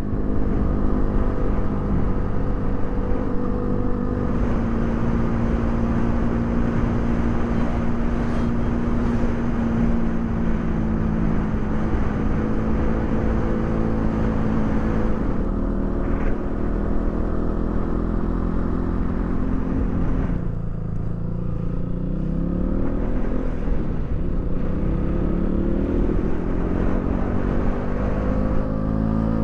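KTM Duke 200's single-cylinder engine running at a steady cruise. About twenty seconds in the revs drop, then climb again in several rising sweeps, and they rise once more near the end.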